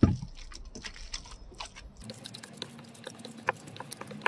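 Wet minced wolf-herring fish paste being squeezed and kneaded by hand in a stainless steel bowl: a heavy slap right at the start, then a run of sticky squelches and small clicks as water is worked into the paste.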